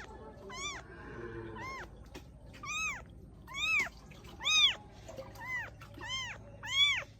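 A cat meowing repeatedly: about nine short meows, each rising then falling in pitch, growing louder in the second half.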